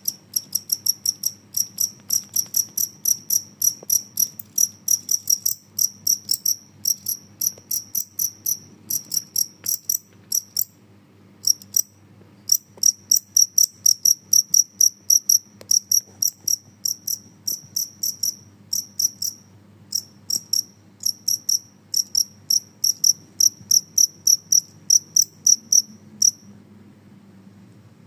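A male genggong cricket singing by rubbing its raised forewings together. The loud, high-pitched chirp repeats about two to three times a second, pauses briefly near the middle, and stops about a second and a half before the end.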